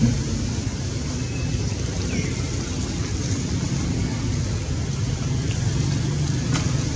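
Steady low outdoor rumble, with a few faint short chirps and a faint click.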